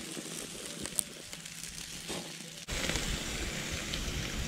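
Barbecue-sauced pork and beef ribs sizzling on a grill: a steady hiss with one small click about a second in. About two-thirds of the way through the sound changes abruptly, and a low rumble joins the hiss.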